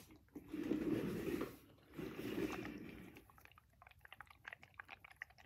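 Close-up mouth sounds at a small juice carton held to the lips: a run of quick, irregular small clicks from about halfway on, after two muffled rustling spells near the start.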